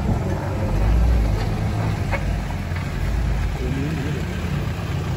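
Toyota Hilux pickup's engine running as it drives over the rough, broken road surface close past, a steady low drone that is loudest about a second in.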